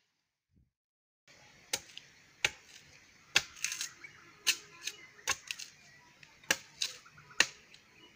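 Machete blade striking a wooden stake: sharp, separate chops about one a second, starting after a second or so of silence.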